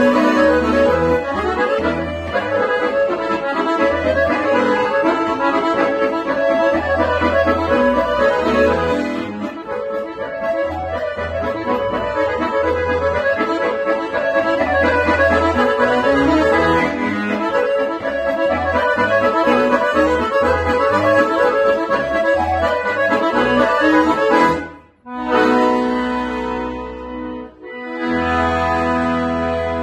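Accordion playing a fast Serbian kolo dance tune, a quick melody over pulsing bass notes. About 25 seconds in the run breaks off and the tune closes on long held chords.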